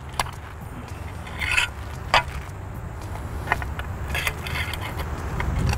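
Scattered scrapes and clicks of a preformed splice shunt's rods being wrapped around a stranded overhead conductor with fiberglass hot sticks, over a steady low rumble.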